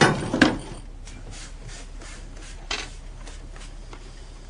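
Rubbing, scraping noise: a loud scrape in the first half second, then a run of faint short strokes, about three a second.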